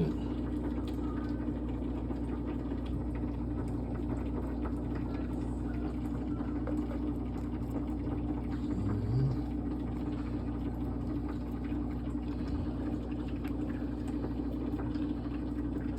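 Steady mechanical hum, like a motor or engine running without change, with faint scattered ticks over it and a short low sound about nine seconds in.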